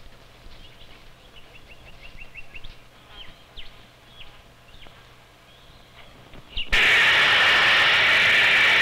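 Faint small-bird chirps, including a quick run of them, then about seven seconds in a loud, steady hiss starts suddenly: a goanna's defensive hiss as a dingo closes in to attack it.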